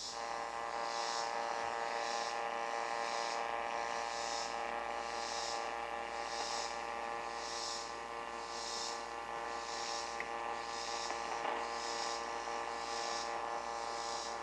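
Hallicrafters SX-100 shortwave receiver's loudspeaker on band 1, the AM broadcast band, giving a steady hum-like buzz with a high hiss that pulses about once a second. The band that had been silent is now producing output, but the set is out of alignment.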